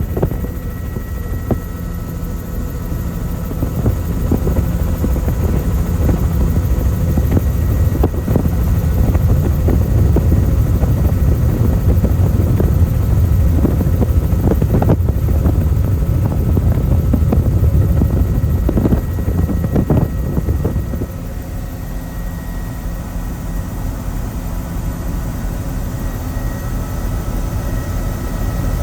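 Helicopter in flight: a loud, steady low rotor and engine rumble with a faint whine. It grows louder about four seconds in and eases off about twenty seconds in.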